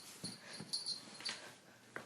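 A dog breathing noisily in short, irregular puffs.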